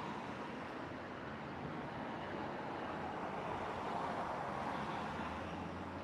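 Gusty wind blowing, a steady rushing that swells about four seconds in.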